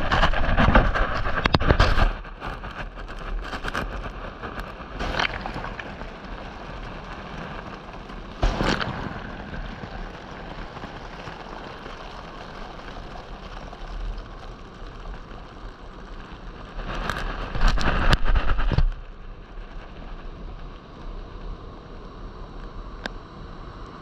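Shallow surf washing up a sand beach around a GoPro at the waterline: a steady hiss of foam and swash, with louder rushes of water over the camera at the start, briefly about eight seconds in, and for about two seconds roughly three-quarters of the way through.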